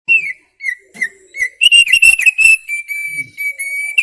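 Opior paruh tebal (thick-billed heleia, a white-eye) singing: loud, clear whistled notes, a few separate ones at first, then quicker notes about halfway through, ending on one held steady whistle.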